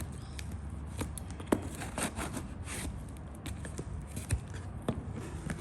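Hands handling an opened cardboard box and its packing: scattered taps and scrapes, with a brief rustle about two seconds in.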